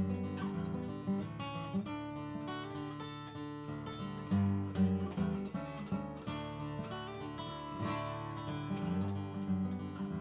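Steel-string acoustic guitar played solo and fingerpicked, deep bass notes ringing under a moving melody line.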